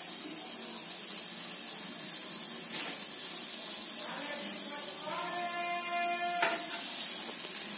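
Onion-tomato masala frying in oil in a steel pot, a steady sizzling hiss; the paste has cooked down until the water is gone and the oil separates. A brief steady tone with overtones sounds for about a second and a half, about five seconds in.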